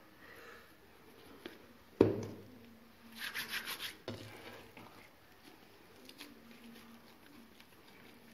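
Hands working soft yeast dough in a plastic bowl and shaping it into balls on a semolina-dusted wooden board. A sharp knock comes about two seconds in, followed by a brief run of quick rubbing strokes and a softer knock.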